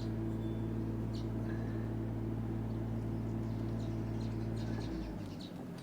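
A steady low mechanical hum from a running machine, which stops about five seconds in, with a few faint light clicks over it.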